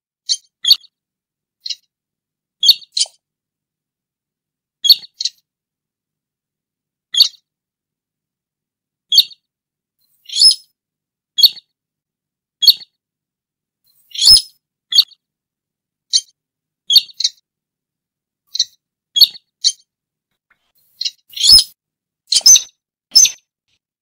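Recorded lure call of the sintar rail: short, sharp, high calls repeated every second or two, often in pairs. The calls come faster and louder near the end.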